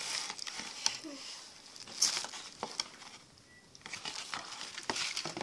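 Handling noise from a cardboard jelly-bean game box and its plastic spinner being moved about close to the microphone: scattered rustles and light knocks, with a short lull about halfway through.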